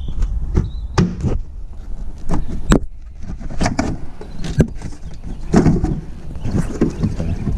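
Plastic taillight housing being wiggled and pried off its retaining clips: a run of irregular sharp clicks and knocks.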